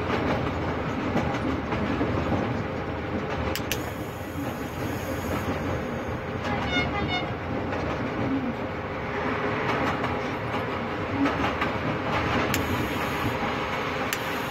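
Train running on the rails, heard from the locomotive cab: a steady running rumble, with a few sharp clicks of the wheels over rail joints or points. About halfway through comes a brief run of short high beeps.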